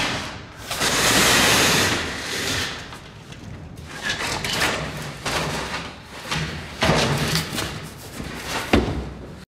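Industrial bakery oven noise: bursts of hissing and metal clattering with thuds, and a sharp bang near the end.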